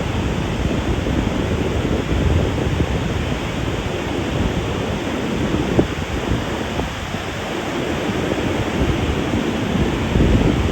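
Ocean surf washing onto a sandy beach, a steady rushing noise, with wind rumbling on the microphone.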